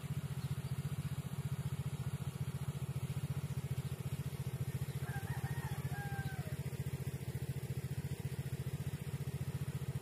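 Small engine idling with a steady, even low putter.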